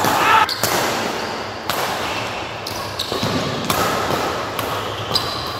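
Badminton rally: sharp racket strikes on the shuttlecock about once a second, with short shoe squeaks on the court floor between them, echoing in a large hall.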